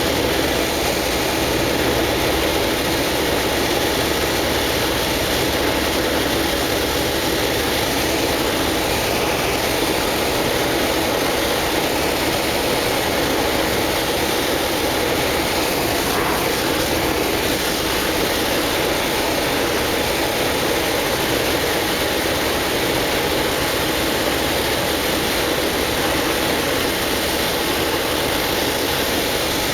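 Propeller aircraft engine running steadily, a continuous even drone with no change in level.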